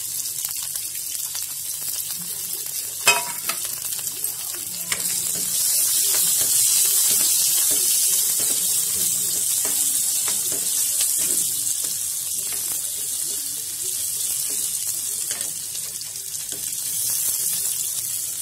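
Chopped onion and green chillies sizzling in hot oil in a kadhai, stirred with a spatula. There is a sharp knock about three seconds in, and the sizzle grows louder a couple of seconds later.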